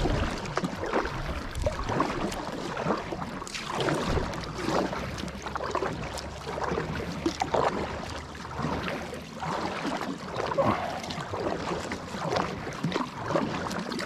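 Kayak paddle strokes splashing in calm water, with water running and dripping off the blades in irregular bursts.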